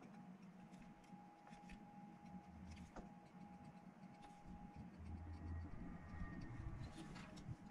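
Near silence: faint room tone with a low steady hum, a thin steady whine, and a few faint ticks.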